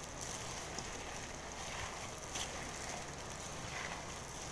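Hands squishing and kneading a raw ground-meat meatloaf mixture in a stainless steel bowl: a few soft, wet squelches over a steady hiss.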